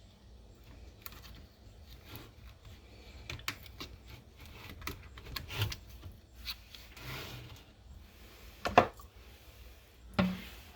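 Plastic bottles and a gallon vinegar jug being handled: scattered light clicks and rustles, with two sharper knocks near the end.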